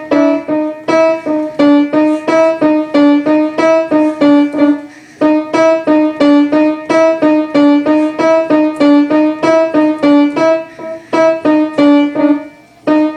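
A short, repeating ringtone-style melody played on piano in quick separate notes, about three to four a second, pausing briefly about five seconds in and again near the end.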